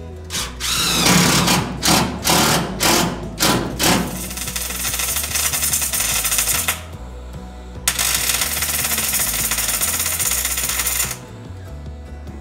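Cordless impact driver run in several short hammering bursts as it drives a screw into sheet steel. Then a MIG welder crackles in two runs of about three seconds each, with a short pause between them.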